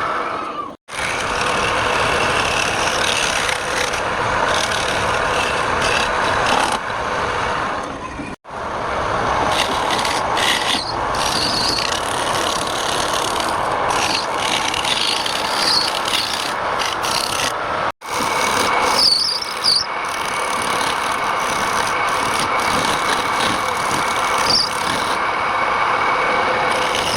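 Wood lathe running with a hand tool rasping against the spinning wood in a steady scraping noise, cut off abruptly three times.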